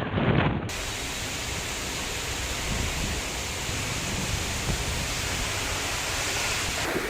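Heavy rain falling in a steady, even hiss. The first moment is wind gusting on the microphone; the rain sound starts abruptly, as at a cut.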